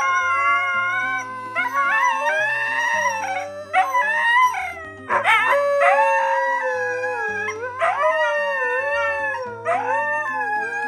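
Two huskies howling together: long, wavering howls that rise and fall in pitch, often overlapping, with short breaks between them. A music bed plays underneath.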